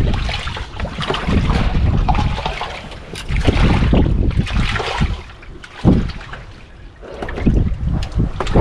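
Wind buffeting the microphone and sea water splashing around a small fishing boat in rough sea, swelling and easing in gusts, with a sharp thump a little before six seconds in.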